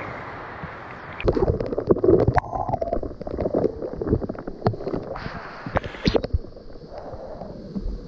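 Waterfall rushing down a rock face close up, with uneven splashing and sharp knocks from about a second in as spray hits the camera, easing off near the end.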